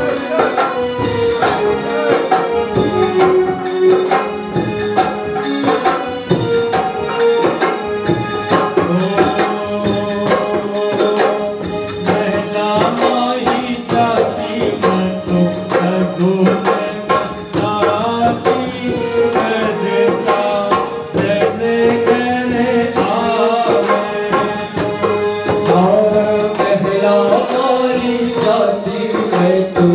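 Phagan folk song: a sung melody over hand drum and a steady jingling beat. The jingling drops back about two-thirds of the way through.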